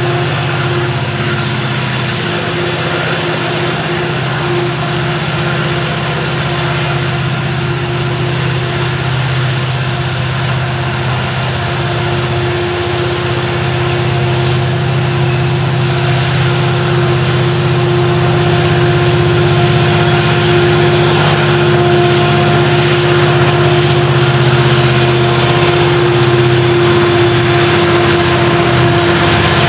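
A loaded coal train climbing a grade: hopper cars rolling past close by over a steady diesel locomotive drone. The drone grows louder over the second half as the locomotives in the train draw near and come alongside at the end.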